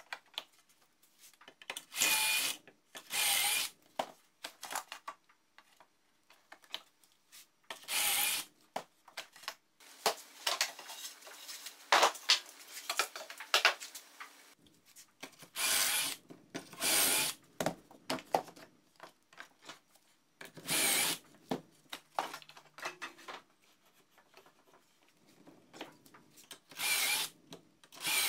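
Craftsman 19.2-volt cordless drill boring pocket holes in pine boards through a Kreg pocket-hole jig, in about seven short runs of roughly a second each. Between the runs come knocks and scraping of boards and the jig clamp being handled.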